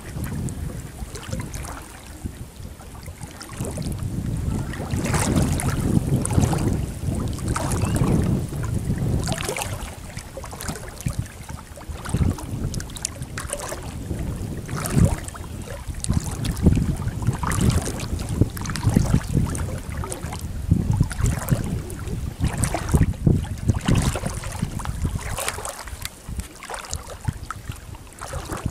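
Legs wading through shallow water, irregular sloshing and splashing with each step, with wind rumbling on the microphone.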